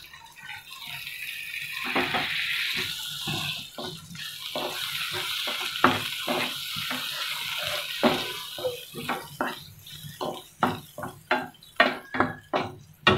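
Water poured into a tomato-and-spice masala frying in hot oil in a nonstick pan, sizzling steadily. From about nine seconds in, a wooden spatula stirs the masala, knocking and scraping against the pan about twice a second.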